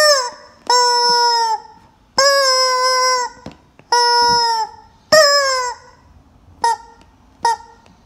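Rubber screaming chicken toy squeezed again and again, giving loud squawks: five long ones, each sagging in pitch as it ends, then two short quick ones near the end.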